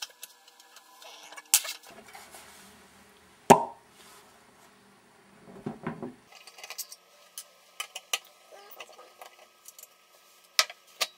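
Parts of a small metal computer case being handled and worked loose: scattered clicks and clinks of metal, one louder knock about a third of the way in, and a run of light clicks and ticks through the second half.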